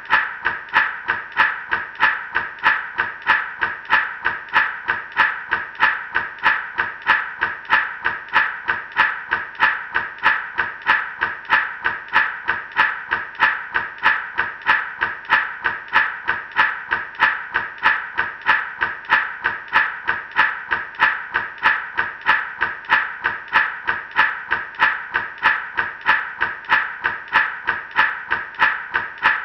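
Gourd rattle shaken in a steady, even rhythm of nearly three shakes a second: a dry rattle of seeds against the shell on each stroke.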